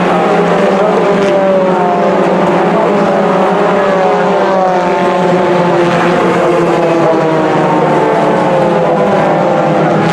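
Several Mini racing cars' engines running hard together, their overlapping engine notes several times falling in pitch as cars go by.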